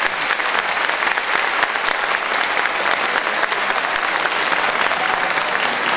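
Hall audience applauding steadily: a dense, even patter of many hands clapping after a speech ends.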